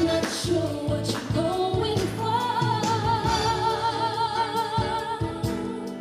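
A song with a singer over a backing band; about two seconds in, the singer holds one long high note with vibrato for some three seconds.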